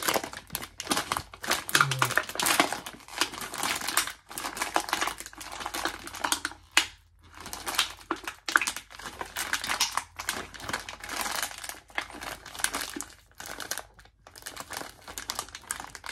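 Foil-lined potato chip bag crinkling and crackling as it is handled and squeezed, with short pauses about seven seconds and fourteen seconds in.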